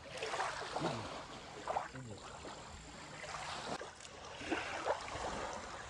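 River water lapping and splashing at the shore, a steady watery rush.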